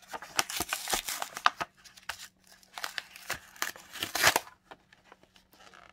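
Stiff plastic of a baseball-card rack pack crinkling and crackling as it is pried and pulled at to free a stack of cards. It comes in two bouts of rustling and sharp clicks, the louder one a little past the middle, then fades to light handling.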